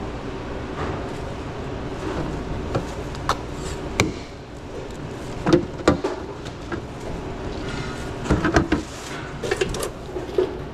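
Food-prep handling sounds at a sandwich counter: a scatter of sharp clicks and knocks with some rustling. The loudest knocks come about five and a half to six seconds in and again around eight and a half seconds, over a steady low hum.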